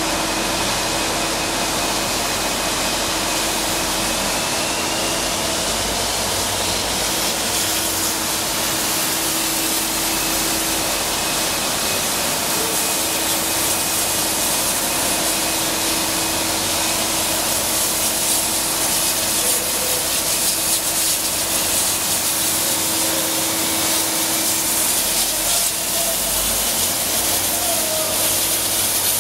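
K class steam locomotive hissing steam as it moves through the station, the hiss growing louder in the second half, over a steady hum.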